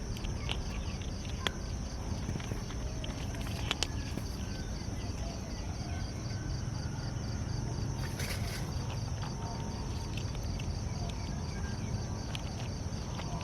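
A cat eating, its chewing heard as scattered small clicks. Under it runs a steady low background rumble and a faint high pulsing whine.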